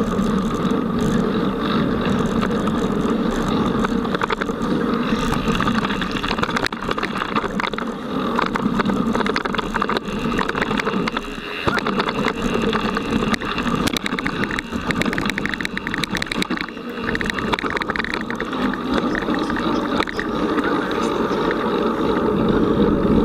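Mountain bike ridden over a rough dirt trail, heard close up from an onboard camera: a continuous rushing and rattling noise with a few brief dips.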